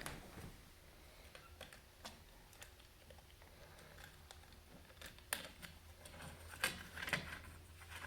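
Faint, scattered light clicks and taps of hands handling thermostat wires and small plastic parts, with a few sharper clicks about five to seven seconds in.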